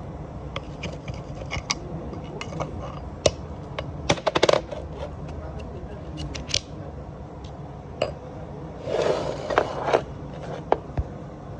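Metal clinks and taps of tools and parts being handled during a differential pinion seal job, with a quick rattle of clicks about four seconds in and a scraping rasp near nine seconds, over a steady low hum.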